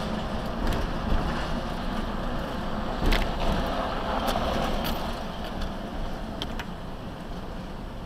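A car's road noise heard inside the cabin while driving: steady tyre and engine noise, with a sharp thump about three seconds in and a few lighter clicks.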